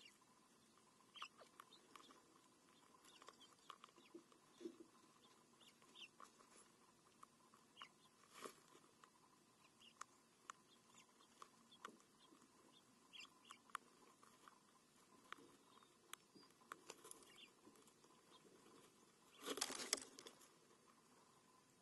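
Faint, scattered clicks and ticks of cottontail rabbits nibbling seed and shifting about on gravel close to the microphone, with one brief, louder scuffling rustle near the end.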